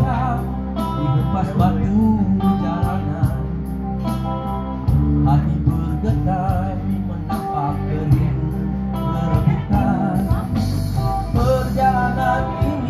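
A man singing into a microphone, with vibrato on the held notes, over continuous instrumental accompaniment.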